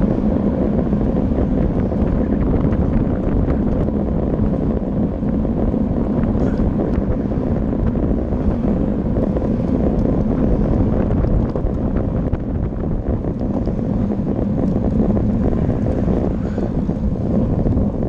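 Steady wind rushing over the microphone of a camera on a moving road bicycle, a loud, even rumble with no break.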